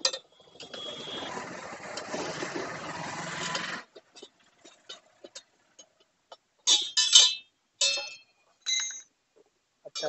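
Steel tyre lever prying a tyre off a motorcycle wheel rim: a sharp click, then about three seconds of rough scraping noise that stops abruptly, scattered light ticks, and several loud, ringing metallic clinks in the last few seconds as the lever strikes the rim and is set down on the paving.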